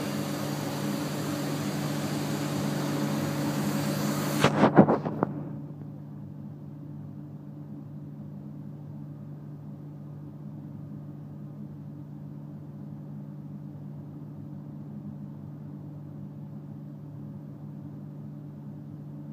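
Electric commuter train at the platform below, with a steady low hum. A rushing noise cuts off suddenly after a cluster of sharp knocks about five seconds in, leaving only the hum.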